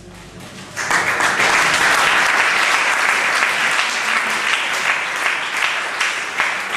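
Audience applauding, breaking out about a second in and then keeping on steadily as a dense clatter of many hands clapping.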